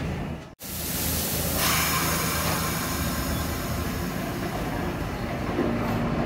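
R62A subway train running on the rails: a steady rumble that stops for an instant about half a second in, with a hiss of higher-pitched noise joining about a second and a half in.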